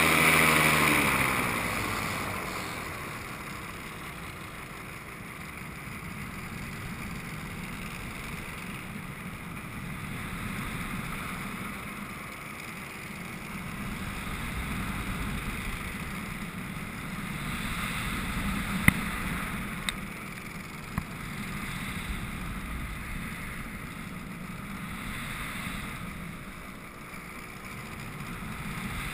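Miniplane paramotor's Top 80 two-stroke engine throttling back at the start, its pitch falling. After that it is mostly wind rushing over the microphone, swelling and fading in slow waves as the wing swings through wingovers, with a few sharp ticks in the middle.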